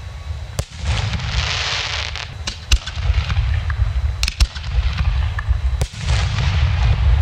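Aerial fireworks shells bursting in a public display: several sharp bangs a second or two apart, two of them in quick pairs, over a steady low rumble. A high hiss starts about a second in and lasts for about a second and a half.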